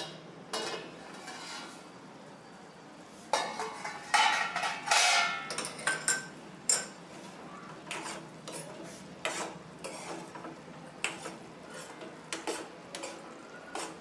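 Steel kitchen clatter: a stainless-steel lid is lifted off a kadhai with pot tongs, with a burst of loud metal clanging about three to five seconds in. Then a steel spoon stirs thick chicken keema, clinking and scraping against the pan's side again and again.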